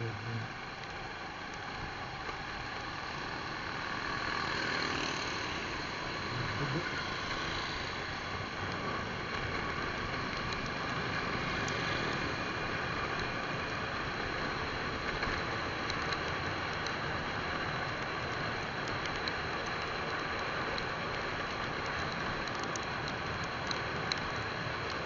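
Motorcycle riding at speed: a steady rush of wind and road noise on the rider's own camera, with the engine buried beneath it. It grows a little louder about four seconds in and then holds steady.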